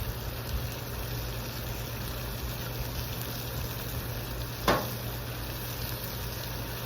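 Steady sizzle and burner noise of chicken cooking on a propane Blackstone flat-top griddle, with one sharp click about four and a half seconds in.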